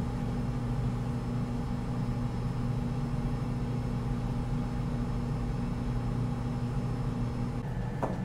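Steady low mechanical hum with a faint high whine over it, like room ventilation or a running appliance. Near the end the whine and part of the hum cut out, followed by a soft click.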